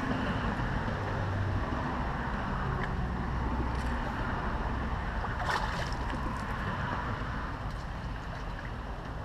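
Steady rushing noise with a low rumble, and a few faint splashes from a hooked peacock bass thrashing at the water's surface.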